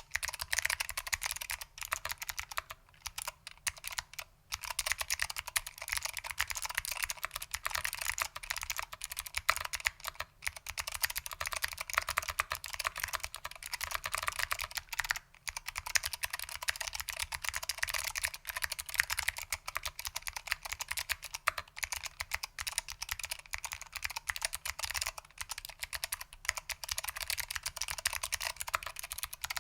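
Fast, continuous typing on a Lunar AEK 65 mechanical keyboard with foam-damped SKCM Blue Alps switches and ABS doubleshot keycaps: a dense run of sharp, clicky keystrokes broken by a few brief pauses.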